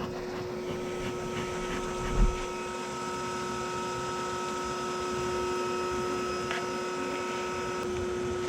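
Bee vacuum motor running steadily with a constant whine, sucking up honeybees. A single low thump about two seconds in.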